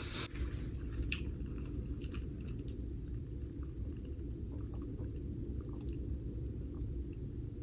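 A person chewing a soft McDonald's McGriddle up close, with scattered wet mouth clicks and smacks, over a steady low hum.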